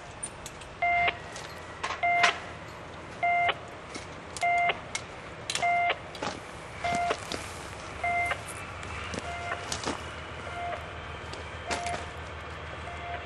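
An electronic warning beeper sounding a short tone about once a second, over the low rumble of a DE10 diesel-hydraulic locomotive approaching slowly, with scattered sharp clanks.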